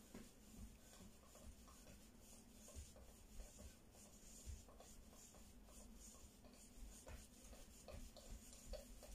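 Near silence: faint shuffling and soft, irregular thuds of shoes on the floor during dance footwork, over quiet room tone.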